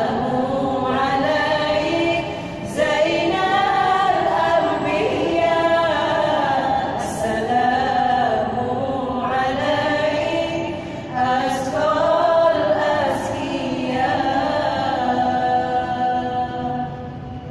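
A group of women singing together in a gambus-style song, in long held phrases with a few sharp clicks among them. The singing drops away near the end.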